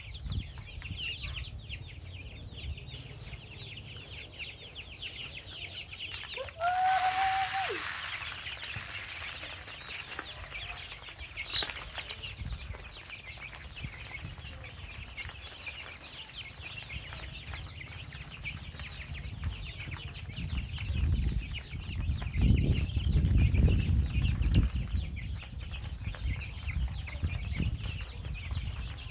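A flock of young chicks peeping constantly in quick, high chirps as they feed. About a quarter of the way in, one longer, lower steady call sounds over a brief hiss, and a low rumble swells about three-quarters of the way through.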